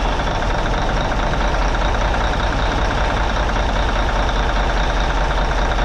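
Cummins N14 inline-six diesel engine running steadily at idle, just started up after the cylinder head replacement.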